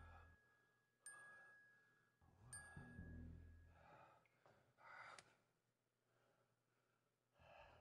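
Faint chime struck twice, about a second and a half apart, each stroke ringing out with a bright, bell-like tone, followed by a few soft breathy sighs and gasps.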